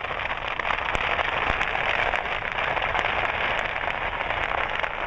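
Dense, steady crackling with many small sharp pops scattered through it: a fireworks stand burning, its stock of fireworks going off in the fire.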